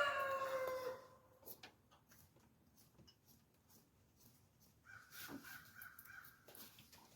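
A rooster crowing, its long call held and sagging in pitch before ending about a second in. Faint clicks and scrapes follow, with a fainter, shorter steady call near the end.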